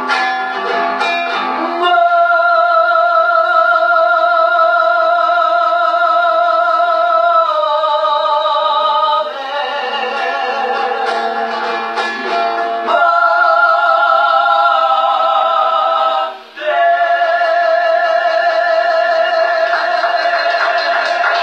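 A song sung with guitar accompaniment: long held vocal notes with a wavering vibrato, with strummed guitar between the phrases at the start and again near the end.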